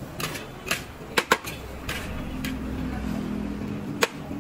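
Metal spatula clanking and scraping against a large steel wok as fried rice is stir-fried, in sharp, uneven strikes. A low engine hum from a passing vehicle comes in about a second and a half in and fades near the end.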